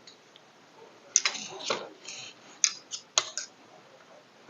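A handful of short clicks and brief scraping rustles of small hard parts being handled, clustered between about one and three and a half seconds in.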